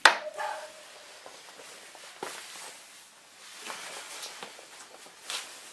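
A sharp metal clank with a brief ringing tone right at the start, then a few lighter knocks and clicks: metal tools and parts being handled and set down.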